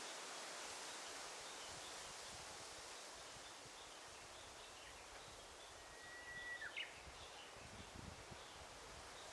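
Quiet forest ambience: a soft steady rustle with faint high chirps scattered through it. About six and a half seconds in, a single bird calls: a held whistle that ends in a quick upward flick.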